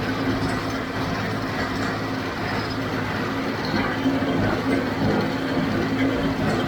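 John Deere 5055D diesel tractor running steadily under load while it drives a JD 348 square baler, the engine's hum and the baler's machinery going on without a break.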